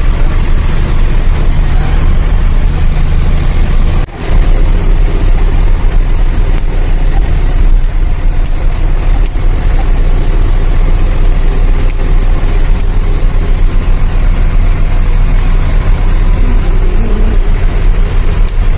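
Truck engine and road noise while driving: a loud, steady low rumble, briefly cut off about four seconds in.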